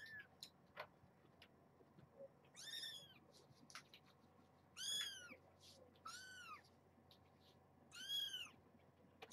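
Young kitten meowing four times, each a short high-pitched call about half a second long that rises and falls in pitch: the protest meows of a kitten unhappy at being put back in its pen.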